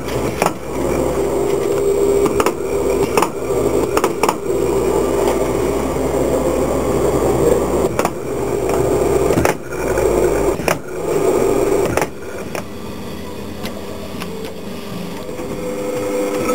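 Steady machine hum with a low drone from a CNC machine setup, broken by a handful of sharp clicks from its pneumatic clamps, mostly in the first few seconds and again around eight and nine and a half seconds in. The low drone drops away about eleven seconds in, leaving a lighter hum.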